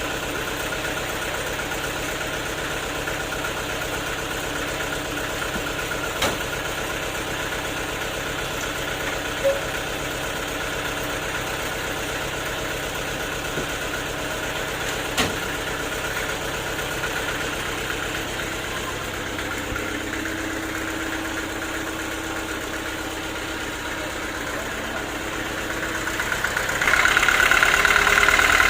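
Homemade sawmill's engine running steadily, with a few sharp knocks. About 27 seconds in it grows louder, with a stronger higher whine.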